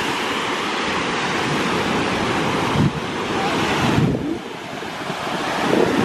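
Surf breaking steadily on a sandy shore, with wind buffeting the microphone; the wind noise eases for a moment a little after four seconds in.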